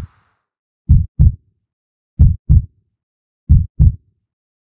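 Heartbeat sound effect: slow lub-dub pairs of short, low thumps, about one pair every 1.3 seconds, three pairs in all.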